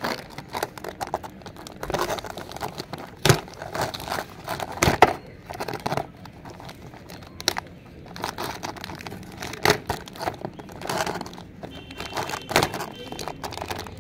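Clear plastic packaging bag crinkling and crackling in irregular bursts as the toy truck inside is handled and its cardboard header card is pulled at.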